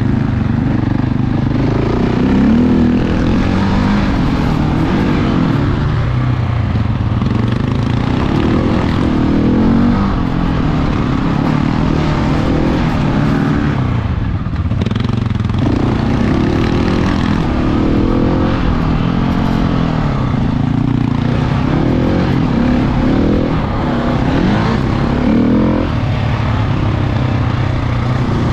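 Large single-cylinder four-stroke dual-sport motorcycle engine ridden off-road, revving up and down repeatedly, easing off briefly about halfway through.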